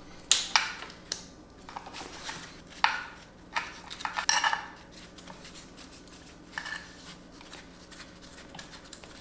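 Irregular metallic clinks and scrapes of a hand wrench on the bolt holding the crankshaft position sensor bracket on a Volvo B5254T engine as the bolt is loosened and taken out. The clinks come thickest in the first half, with a few more later.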